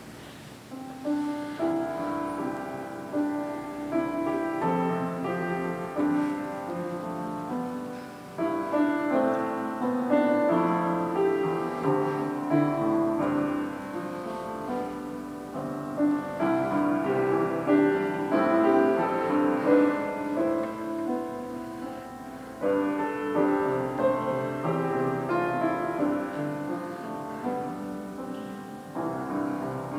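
Piano music, starting about a second in, with chords and melody notes.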